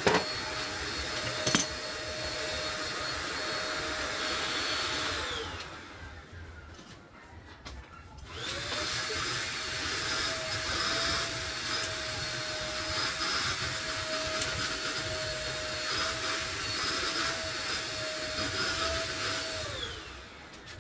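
A small electric motor running at a steady pitch for about five seconds, winding down and stopping, then starting again a few seconds later and running steadily until it winds down near the end.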